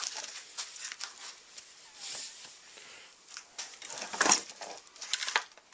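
Rustling, crinkling and clicking of things being handled, with a louder burst of clatter about four seconds in.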